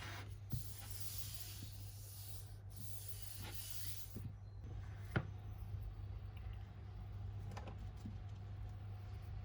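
Faint rubbing or handling noise for the first few seconds, then a few light clicks, over a steady low hum.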